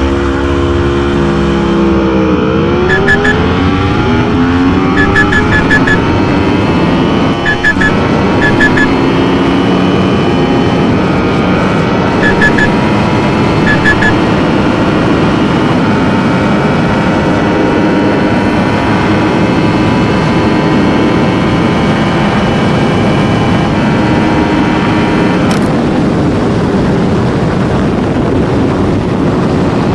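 Superbike engine at full throttle under hard acceleration: the pitch climbs fast, drops at a gear change, then rises slowly and holds high as it nears top speed, over a steady rush of wind noise. A change in the engine note comes near the end.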